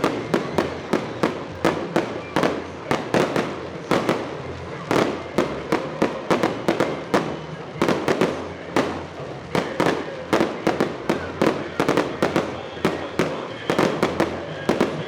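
Fireworks salute: aerial shells bursting in a rapid, continuous barrage of sharp bangs, about three or four a second.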